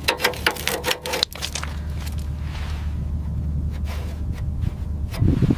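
Gloved hand rubbing and scraping over rusty metal: a quick run of scratches and clicks, then sparser ticks over a steady low hum. A low rumble starts near the end.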